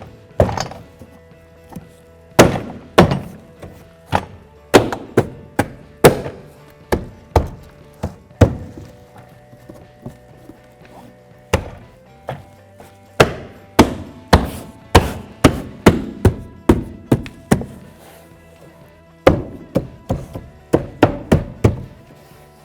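Interior door trim panel being struck by hand to snap its retaining clips onto the door: a long series of sharp thunks, one or two a second, in runs broken by short pauses.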